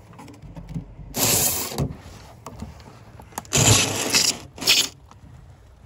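Rustling, scraping handling noise as a fabric curtain rubs against the recording microphone. Two long bursts, about a second in and about three and a half seconds in, then a short one just after.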